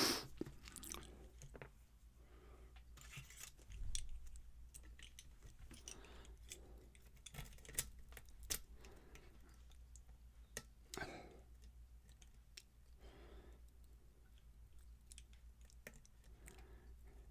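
Faint clicks and scraping of a lock pick and tension wrench working the pins of a pin tumbler challenge lock, with a soft knock about four seconds in.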